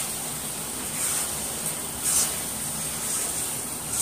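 Bombil chutney of tomato, spices and fresh coriander sizzling in a steel kadhai as it is stirred with a metal spoon, with a couple of louder spoon scrapes about one and two seconds in.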